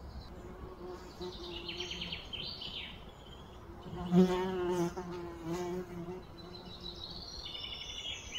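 A flying insect buzzing close by, its pitch wavering as it moves, loudest about four seconds in. Small birds chirp a few times in the background.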